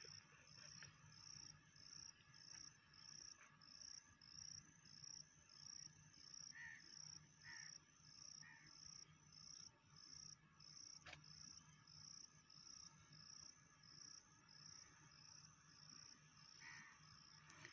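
Faint insect chirping: a steady high chirp repeating about twice a second.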